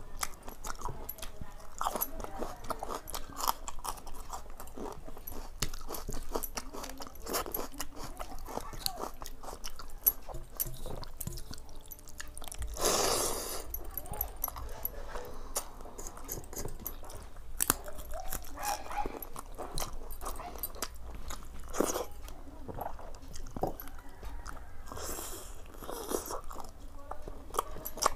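Close-miked eating: a person crunching and chewing mouthfuls of water rice with fried prawns, raw onion and green chili, with many small mouth clicks and crunches. There is a louder breathy burst about halfway through.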